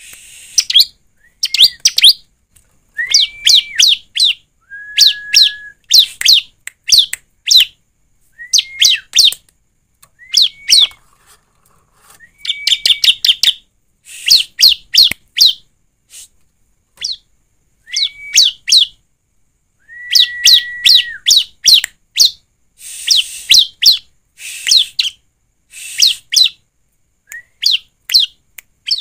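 Bar-winged prinia (ciblek) calling in quick bursts of sharp, high chips, several notes to a burst, repeated every second or two. Some bursts open with a short, lower whistle.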